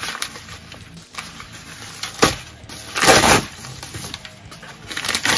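Bubble mailer crinkling and rustling as a comic is pulled out of it, in several short bursts, the loudest about three seconds in.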